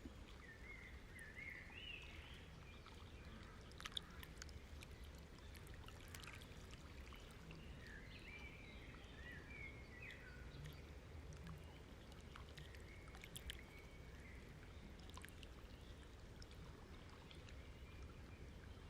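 Faint ambience: small birds chirping in the distance over a low, steady hum, with a couple of soft clicks.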